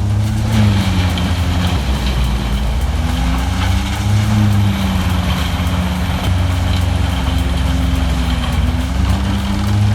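Heavy machine's diesel engine running steadily, its pitch drifting gently up and down.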